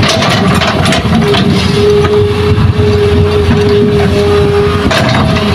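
A Hitachi hydraulic excavator works with its diesel engine running steadily, under a steady whine that breaks off now and then. Scrapes and knocks come every so often as the bucket digs into rocky soil.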